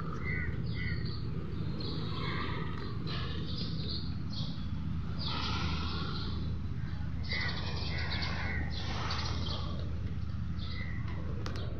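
Birds calling again and again in short chirps over a steady low rumble.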